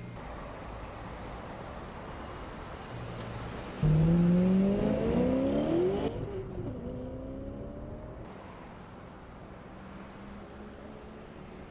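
Car engine accelerating: it comes in suddenly about four seconds in, rising in pitch for about two seconds, then drops and fades away.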